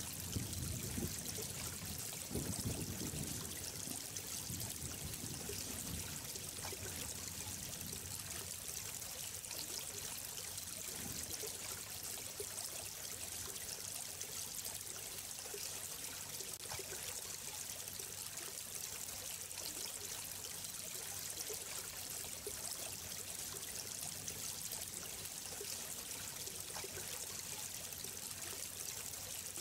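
Running water flowing steadily, an even rushing and trickling. A low rumble joins it for the first several seconds.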